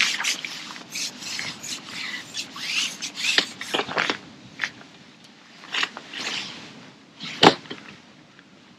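Rustling, rubbing and scraping handling noises in a string of short strokes, with one sharp click or knock about seven and a half seconds in.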